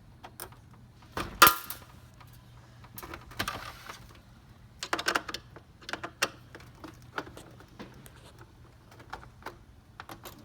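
Screwdriver clicking and scraping as small screws are backed out of the plastic housing of a mini ice maker's motor mount, with irregular clicks and rattles and one sharp knock about a second and a half in.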